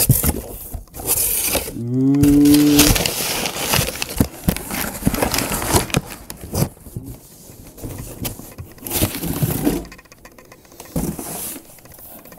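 Cardboard box being torn and handled open, with repeated rustling and scraping. About two seconds in, a person makes a low, drawn-out vocal sound that rises and then holds for about a second.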